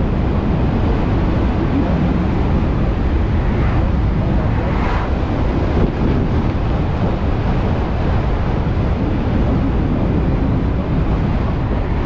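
Steady wind rush over the microphone, with tyre and road noise, while an electric motorbike is ridden at speed.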